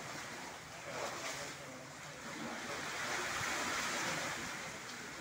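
Sea waves washing against rocks, swelling briefly about a second in and again more strongly through the second half.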